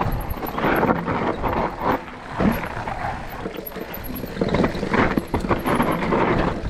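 Mountain bike riding down a rough trail: tyres rolling over dirt and rocks, with irregular rattling and knocking from the bike.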